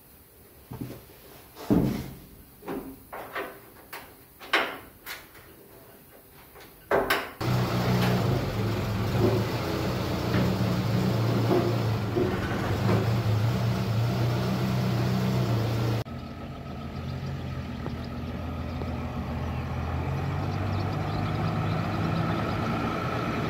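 A run of separate knocks and bangs, then from about seven seconds in the Suzuki Samurai's engine running steadily. About two-thirds of the way through, the engine sound drops abruptly to a quieter, smoother drone.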